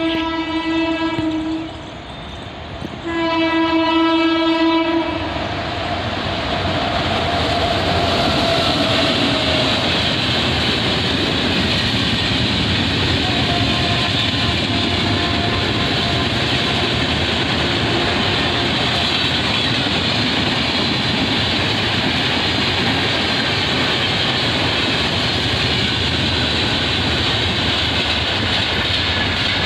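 A passenger train's locomotive horn sounds twice: a held blast that cuts off under two seconds in, then a second one of about two seconds. Then the long rake of coaches rolls past with a steady, loud rumble of wheels on rail.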